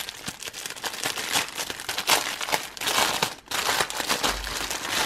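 Plastic packaging crinkling and rustling as it is handled and pulled open by hand, in an irregular run of crackles.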